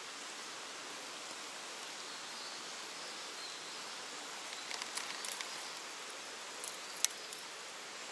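Steady hiss of running water in a rocky gorge stream. A cluster of small clicks and taps comes about five seconds in, and a single sharp click follows about two seconds later.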